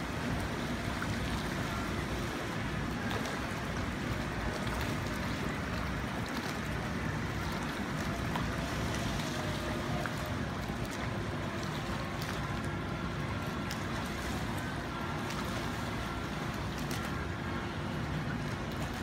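Steady wind on the microphone over choppy harbour water lapping, with a faint steady hum joining about twelve seconds in.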